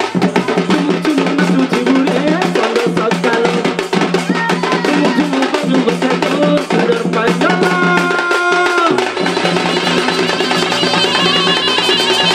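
Live tribal folk music from Kalahandi, Odisha: a barrel drum beaten in a quick, dense rhythm, with a pitched melody line over a steady low drone that drops out about nine seconds in.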